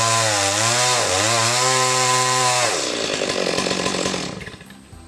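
Two-stroke chainsaw running at high revs and cutting into a log, its pitch dipping twice as it bites. About three seconds in the engine drops off and fades out.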